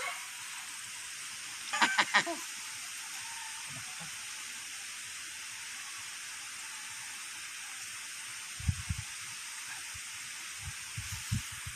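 Steady outdoor hiss of river ambience, with a quick run of three or four sharp clicks about two seconds in and a few low thumps near the end.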